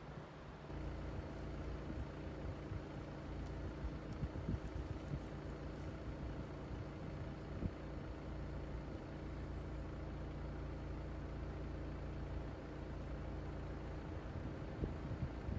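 A car engine idling with a steady low hum that starts just under a second in.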